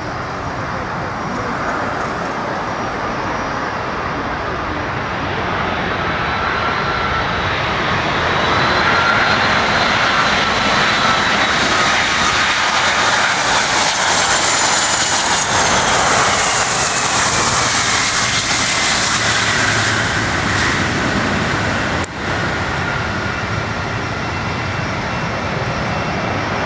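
Jet engine noise from a British Airways Boeing 747-400, powered by four Rolls-Royce RB211 engines, on landing. The loud rushing noise builds as the jumbo approaches and passes, with engine whines that fall in pitch as it goes by. The noise then runs on steadily through touchdown and the rollout.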